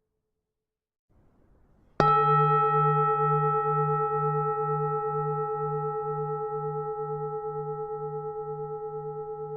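Buddhist temple bell struck once about two seconds in, then ringing on and slowly fading, with a low hum that pulses about three times a second beneath clearer higher tones.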